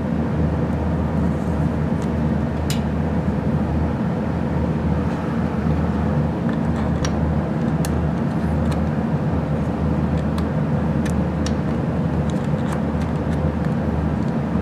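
Steady hum and rush of a running heater, with a scattering of small sharp clicks as the start relay and its screw are handled.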